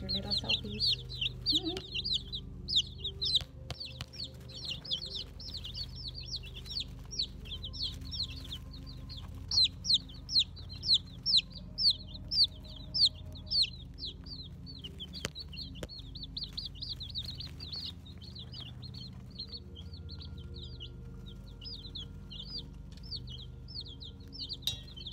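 Four-day-old Faverolle chicks peeping nonstop, a rapid stream of short high chirps from several birds, louder for a few seconds around ten to thirteen seconds in.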